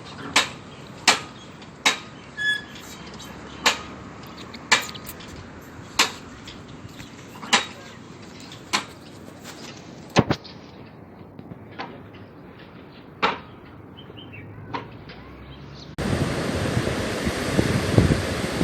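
Sharp, separate knocks about once a second over a faint steady hiss, with a short squeak about two seconds in. About sixteen seconds in, loud wind rushing over the microphone starts abruptly.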